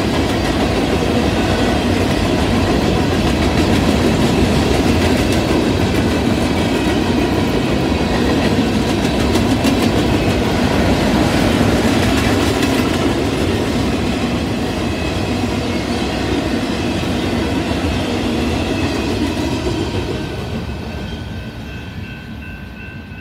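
Boxcars of a freight train rolling past, a steady rumble of steel wheels on rail with repeated clicks over the rail joints. The sound fades away near the end as the last cars go by.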